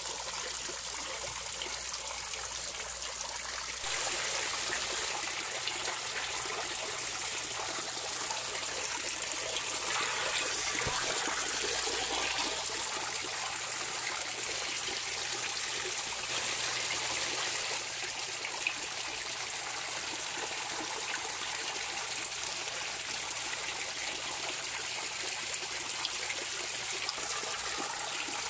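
Steady running, trickling water, a little louder from about four seconds in.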